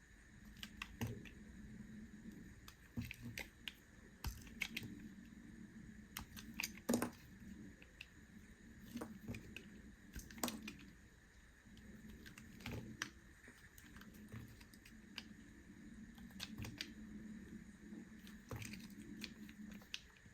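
Knife cutting through bar soap: irregular crisp clicks and crunches as the blade breaks through, with a sharper crack about seven seconds in and again near ten seconds.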